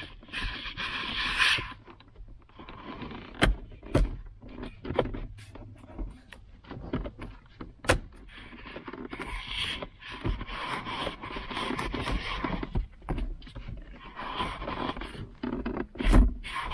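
Gloved hands prying and tugging at the plastic center console trim around the shifter and handbrake of a Subaru WRX, giving long stretches of scraping and rubbing with a few sharp clicks and knocks.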